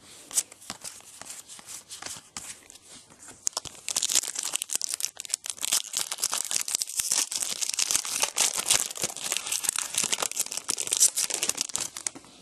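A foil Select AFL Champions trading-card pack being opened, its wrapper tearing and crinkling. It starts as quiet rustling and becomes loud, dense crinkling about four seconds in.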